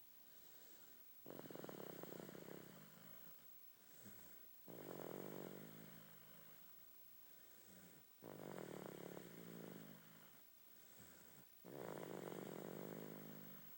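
Snoring: four snores about three and a half seconds apart, each starting suddenly and fading away over a couple of seconds.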